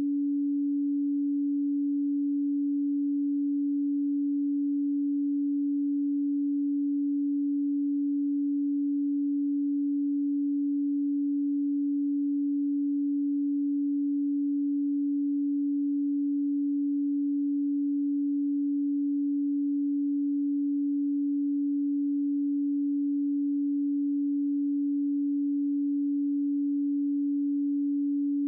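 Pure 285 Hz sine tone, a low hum held at one pitch and one level without a break.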